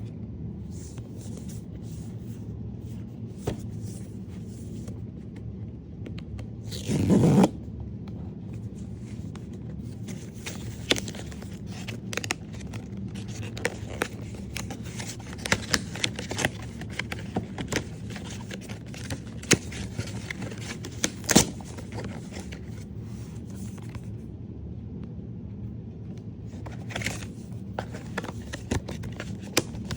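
Blind-box figurine packaging being handled and opened by hand. A sharp rip about seven seconds in, then scattered crinkles, scrapes and clicks, over a low steady hum.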